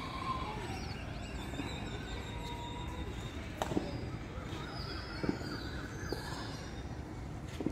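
Several birds chirping and calling over a steady low background rumble of outdoor noise, with a few brief sharp clicks.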